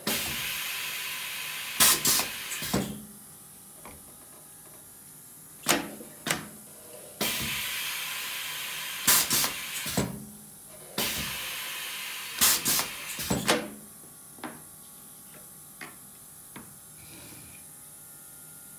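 Pneumatic picture-frame underpinner joining a moulding corner: hiss of compressed air in stretches of two to three seconds, with several sharp clacks as the corner is clamped and wedges are driven in. This happens over three or four cycles, then only a few small ticks after about fourteen seconds.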